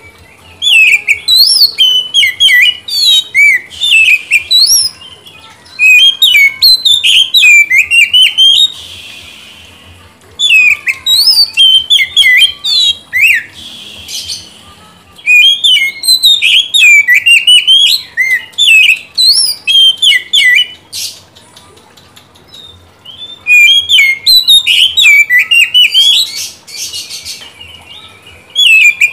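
Oriental magpie-robin singing: loud, rapid, varied whistled phrases in about five bursts of a few seconds each, with short pauses between.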